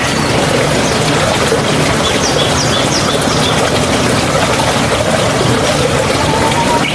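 Steady rush of running water, loud and unbroken, with a few faint bird chirps above it a couple of seconds in.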